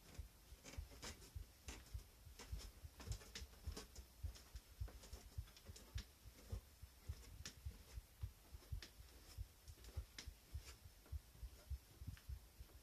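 Heartbeat: faint, regular low thumps, with scattered sharp clicks among them.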